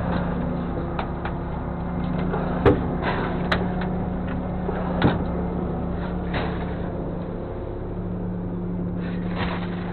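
A fishing boat's engine running steadily, with a few sharp knocks and clunks of gear on the deck.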